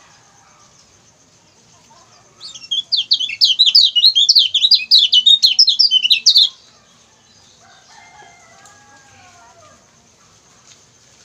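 Kecial kuning, a white-eye, singing a fast run of high chirping notes for about four seconds, starting a couple of seconds in. A fainter, lower sliding call follows.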